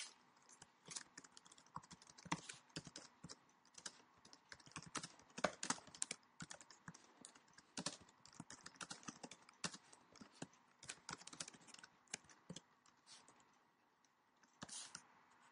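Faint typing on a computer keyboard: quick, irregular keystroke clicks, thinning out near the end with a short final cluster.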